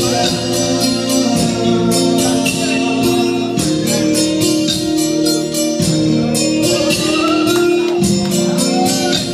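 Karaoke backing track playing loud through the bar's speakers, with a man's amplified singing into a handheld microphone.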